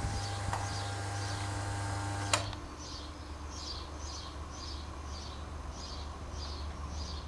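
Steady low hum with a faint high chirp repeating about twice a second, and a single sharp click a little over two seconds in, after which the hum drops lower.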